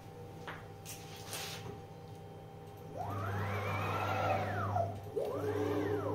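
Stepper motor driving the Z axis of a ZX7045 CNC mill through two jogs. Each is a whine that rises in pitch as the axis speeds up and falls away as it slows: the first lasts about two seconds from about three seconds in, the second is shorter. A low hum runs under both moves, and a few sharp clicks come in the first second and a half.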